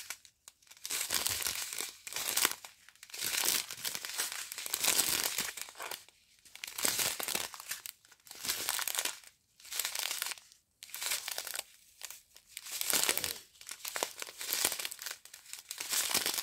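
Small clear plastic bags of round diamond-painting drills crinkling as they are handled one after another. The rustles come again and again with short pauses between them.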